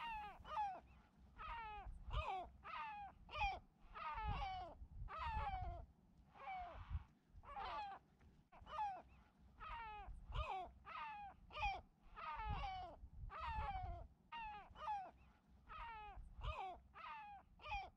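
A bird calling over and over, short falling calls coming about once a second, faint, with a low rumble underneath.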